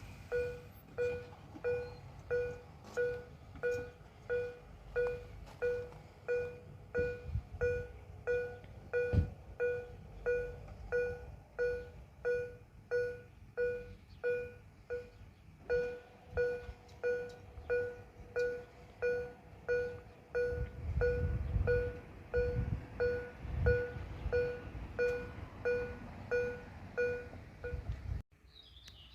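Railway level-crossing warning bell ringing in a steady, even rhythm of pitched dings, with a low rumble swelling in the background late on. The ringing cuts off suddenly near the end.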